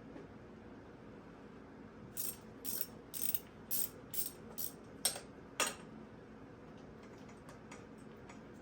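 Ratcheting clicks in short bursts, about two a second, ending in two sharper clicks; a ratchet mechanism worked back and forth during a bicycle repair.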